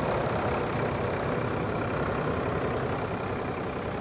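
Steady engine rumble with a noisy mechanical hiss, easing slightly near the end.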